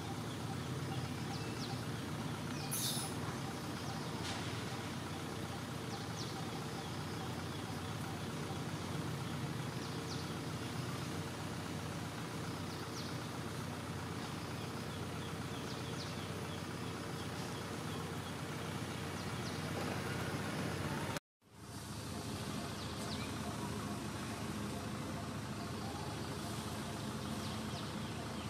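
Steady outdoor background noise with a low rumble, with a few faint, short high chirps now and then. The sound drops out completely for a moment about 21 seconds in.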